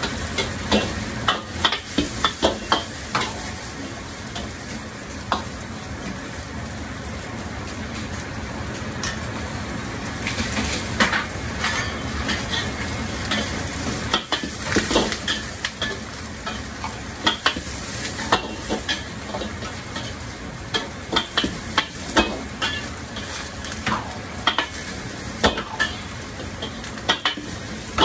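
Eggplant strips deep-frying in a wok of hot oil and noodles pan-frying in a second wok, sizzling steadily. Metal ladle and tongs clank and scrape against the woks in repeated clusters of sharp strikes.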